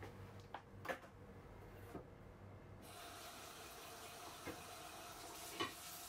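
Kitchen sink tap turned on about three seconds in, water then running steadily into the sink to rinse dishes. A few light knocks come before it, and a single sharper knock near the end.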